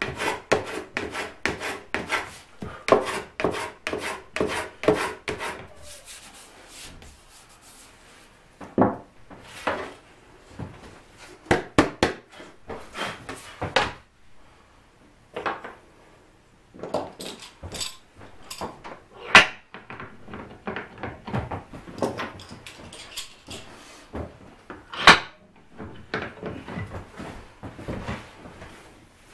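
A small wooden block is rubbed quickly back and forth over a spruce guitar soundboard, about three strokes a second, for the first six seconds. After that come scattered wooden knocks and scrapes as the thin board and tools are handled on the workbench, the loudest being two sharp knocks about 19 and 25 seconds in.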